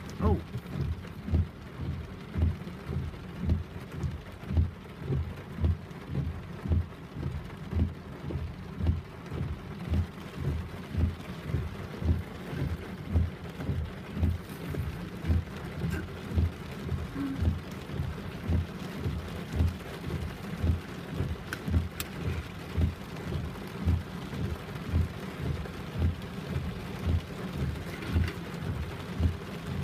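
Heavy rain falling, under a regular low thump that repeats about twice a second.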